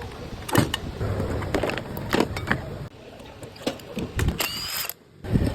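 Irregular mechanical clicks and knocks, as of tools and metal parts being handled, with a brief squeak about four seconds in.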